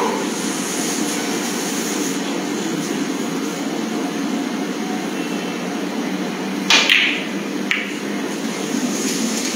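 Snooker shot: two sharp ball clicks about a second apart, the first louder with a short ring, as the cue ball is struck and reaches the pack of reds. A steady hum of hall background noise runs underneath.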